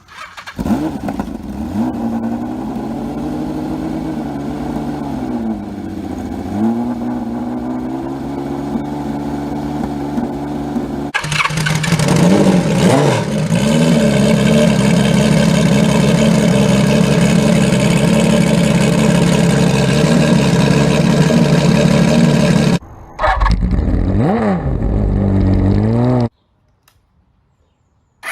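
Kawasaki Z1300 inline-six engine and exhaust, heard in several spliced clips. In the first, it runs at idle with throttle blips that rise and fall. From about eleven seconds in it holds a steady, louder note. Near the end there is another quick rev, then about two seconds of silence.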